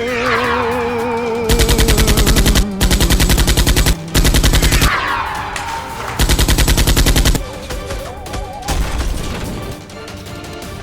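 Four bursts of rapid automatic gunfire, each about a second long, over music, with two falling, whistle-like swoops, one at the start and one midway.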